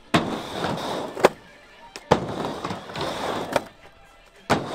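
Skateboard wheels rolling across a wooden halfpipe in three surges as the board goes back and forth across the ramp. Sharp clacks of the board and trucks striking the ramp come about four times.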